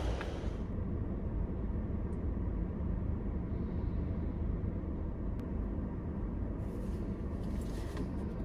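A car's steady low rumble while driving, engine and road noise with no distinct events; a brighter hiss drops away about half a second in.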